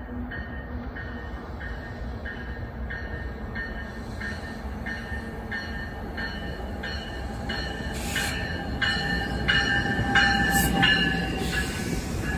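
NJ Transit commuter train approaching and pulling alongside, its bell ringing steadily about twice a second and growing louder as it nears. Near the end the low rumble of the multilevel coaches rolling by builds, with a few brief high squeals from the wheels.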